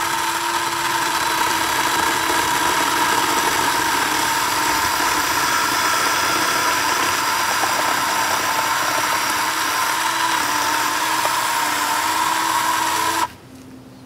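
Ryobi CS1800 18-volt battery chainsaw with a 10-inch bar running steadily while cutting into a tree stump: an electric motor whine with the chain rasping through the wood. The pitch sags a little under load in the later seconds, and the saw cuts off suddenly about a second before the end.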